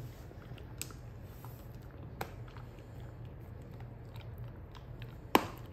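A wolfdog crunching a hard stick-shaped dog treat, with a few sharp cracks as it snaps; the loudest comes near the end.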